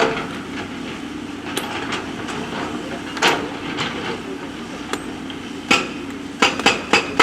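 JCB backhoe loader's diesel engine running steadily, with sharp metallic clanks of the bucket striking stones. There are a few scattered clanks, then a quick run of several close together near the end.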